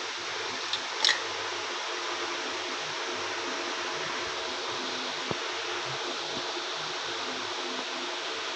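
Steady hiss with a faint low hum underneath, broken by a few light clicks about a second in and once more past the middle.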